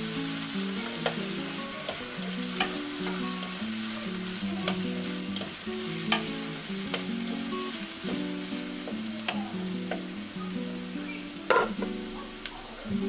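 Chopped aromatics sizzling in hot olive oil in a pan, with a plastic spatula stirring and tapping against the pan every second or two, the loudest tap near the end. Soft background music with held plucked notes plays underneath.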